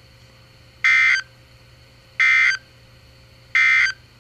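Emergency Alert System end-of-message signal: three short buzzy bursts of SAME digital data tones, evenly spaced about a second and a half apart, marking the end of the alert.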